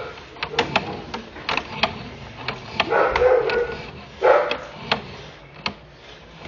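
A dog barks twice about halfway through, over irregular sharp clicks, two or three a second, from the sewer inspection camera's push cable being pulled back out of the drain line.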